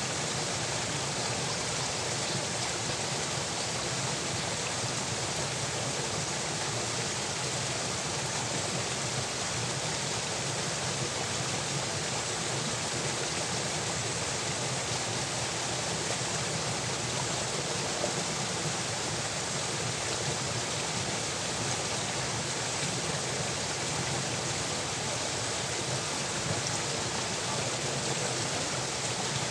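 Irrigation channel water flowing steadily: a constant even rush.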